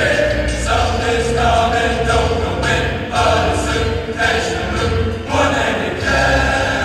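Men's choir singing a series of held chords that move to new pitches about once a second, with strong bass voices underneath.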